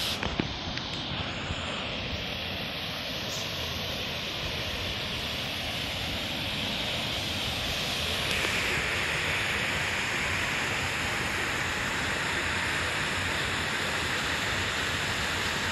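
Steady rushing of water from a waterfall and its stream, growing brighter and a little louder about halfway through. A few light knocks near the start.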